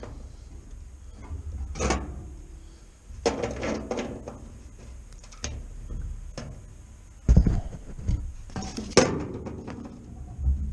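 Irregular clicks and metallic knocks as locking clamps and hand-held spot-welder arms are fitted onto a thin sheet-steel panel seam. The sharpest knocks come a little past the middle.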